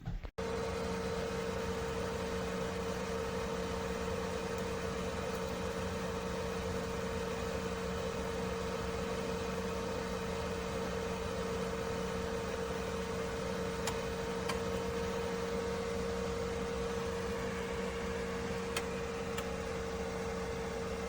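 Countertop toaster oven air fryer running: its convection fan makes a steady hum with a low tone and a higher tone, with a few faint ticks in the second half.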